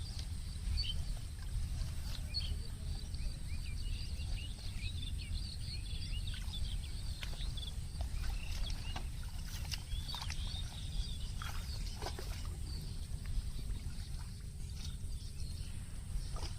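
Outdoor field ambience: many short, quick bird chirps over a steady low rumble and a steady high hiss, with a few sharp ticks.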